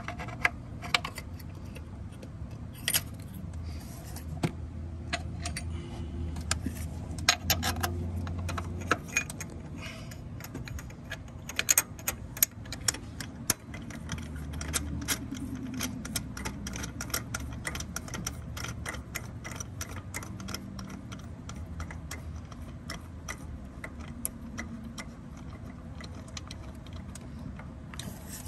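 Socket and extension turned by hand in a spark plug well, threading in a new spark plug: many small, irregular metal clicks and rattles over a low steady hum.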